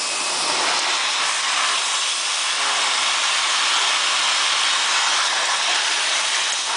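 Tarp hemming welder running with a steady hiss of hot air. The hiss swells a little louder just after the start and holds, as the seam is being welded.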